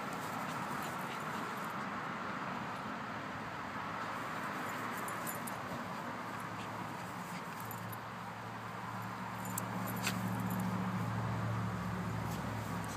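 West Highland white terrier growling as it tussles with a wooden shovel handle, the low growl building up in the second half. A sharp click about ten seconds in.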